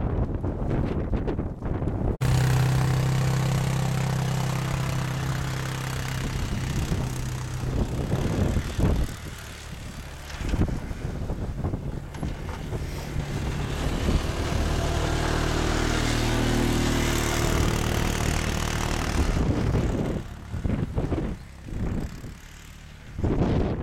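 A motor vehicle's engine running at a steady pitch, heard through a loud rushing noise like wind on the microphone; the engine sound starts abruptly a couple of seconds in and comes and goes.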